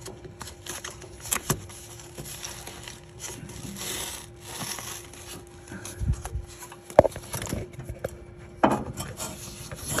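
Insulation being pulled and pushed aside by hand inside a water heater's casing: rustling and scraping, with scattered small clicks and knocks. The sharpest click comes about seven seconds in.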